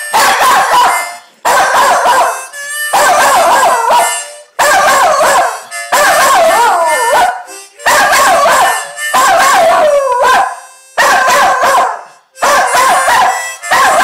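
Jack Russell terrier howling, a string of about nine howls of a second or so each with short breaks between, the pitch wavering and often sliding down at the end of each.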